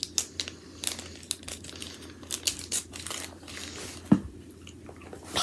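Packaging being crinkled and torn open, in irregular crackles, with one sharp thump about four seconds in.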